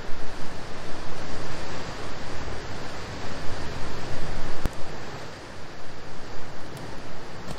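Gusty wind rushing over the microphone, mixed with the wash of surf: a steady noisy rush that swells and dips, with a single sharp tap about halfway through.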